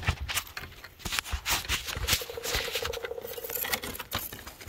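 Close handling noise of a phone camera being moved and repositioned: irregular scrapes, rubs and knocks as hands and sleeve fabric brush against the microphone.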